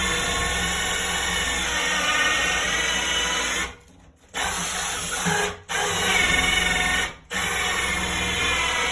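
Drill spinning a 2-1/8 inch hole saw as it cuts through wood, a steady whine with a grinding edge. The motor stops briefly three times: for about half a second near the middle, then twice more for a moment, and it picks up again each time.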